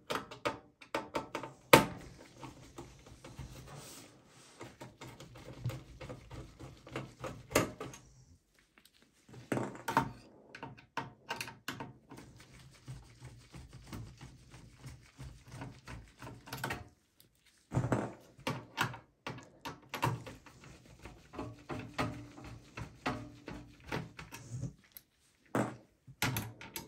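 Screwdriver backing out motherboard screws from a steel PC case: irregular clicks and small knocks of the bit in the screw heads and against the metal, with short pauses between screws.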